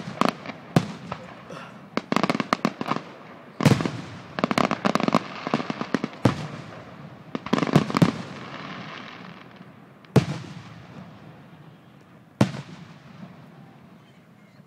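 Consumer fireworks going off. Rapid crackling volleys of sharp bangs are followed by two single loud reports about ten and twelve seconds in, with a fading crackle between them.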